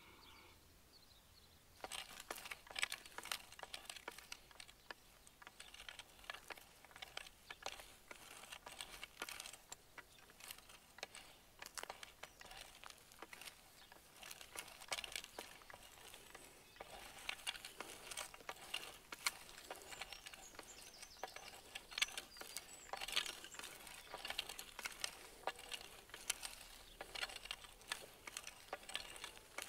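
Oscillating stirrup hoe blade scraping through dry, cloddy soil between rows of maize seedlings. It makes a dense, irregular stream of faint scratches and clicks as it cuts the weed seedlings, starting about two seconds in.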